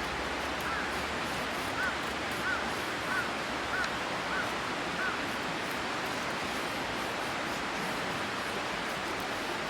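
Steady rushing background noise, with a bird giving seven short calls in a quick, evenly spaced series during the first half.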